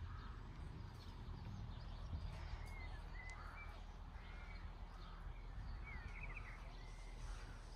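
Quiet open-air ambience: faint birds chirping, with a few short calls two to three seconds in and a quick run of notes about six seconds in, over a low steady rumble.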